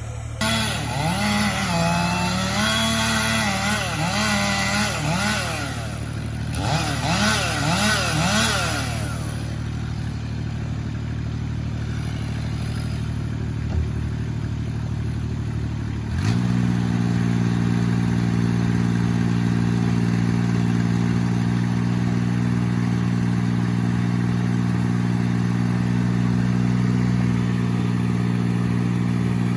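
Chainsaw cutting, its engine pitch wavering under load, with a short break about six seconds in; it stops about nine seconds in. A larger engine hums steadily underneath. About sixteen seconds in, that engine speeds up quickly and runs on at a steady higher speed.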